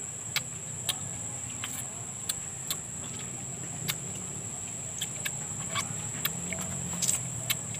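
Close-up mouth sounds of eating soft ripe mango: irregular wet lip smacks and clicks as the flesh is bitten and sucked from the slice. A steady high-pitched drone runs underneath.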